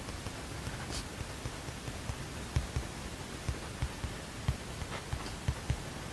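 Steady hiss of room noise, with a run of soft, irregular low knocks and light ticks on a desk in the middle stretch, the small handling sounds of someone studying.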